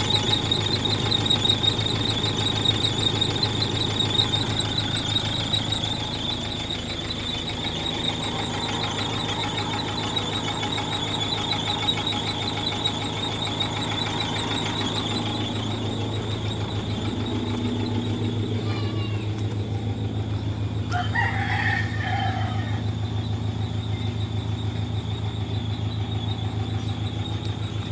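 Isuzu truck's diesel engine idling steadily, with a continuous high-pitched whine over it. A rooster crows once about three-quarters of the way through.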